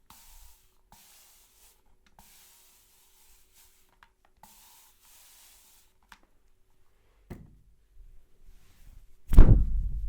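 Hands rubbing through hair in four short, hissing strokes, as in a hair-cracking head massage. A click comes about seven seconds in, then a loud thump near the end.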